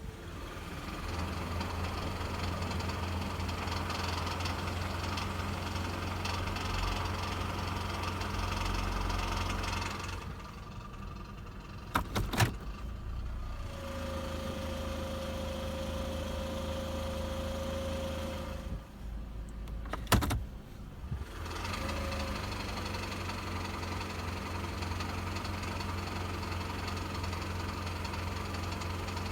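Idling engine of a 20-series Toyota Vellfire, recorded for an abnormal noise that appears in summer with the A/C on and the gear in Drive; a dealer could not find its cause. A steady low hum runs throughout; about a third of the way in and again about two-thirds in, the sound dips with a few sharp clicks, and between the two dips a steady higher-pitched hum sounds for about four seconds.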